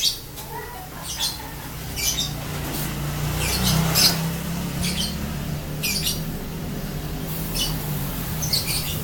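Single-cylinder four-stroke engine of a Yamaha Vega motorcycle built up to 130cc, running with a low steady hum that rises briefly about four seconds in and settles back. Short, sharp high-pitched squawks repeat over it every half second to a second.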